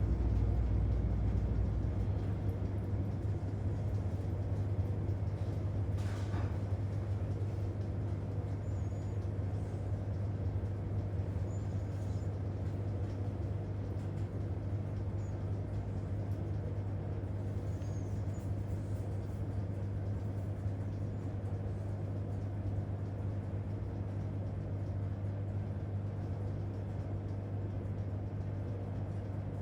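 Hoover 800RL top-loading washing machine running with a steady low hum and no back-and-forth agitation stroke; a deeper rumble drops away about two seconds in.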